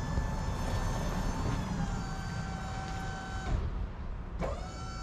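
Delivery box truck running at the curb: a low engine rumble with a steady high mechanical whine. The whine steps down slightly in pitch about two seconds in, cuts out for under a second near the end, and comes back.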